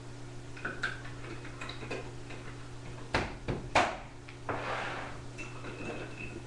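A few light clicks, then two sharp knocks about half a second apart and a short rustle, over a steady low electrical hum.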